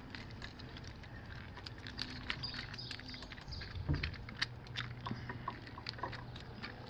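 Scattered small plastic clicks and rattles from handling the brush assembly of a Polaris Quattro P40 pool cleaner while a new brush is fitted and pulled through, with one dull knock about four seconds in.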